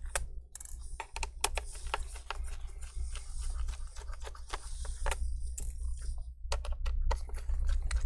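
Small Phillips PH0 screwdriver backing screws out of a laptop's metal bottom cover: irregular light clicks and scrapes of the bit in the screw heads, over a steady low hum.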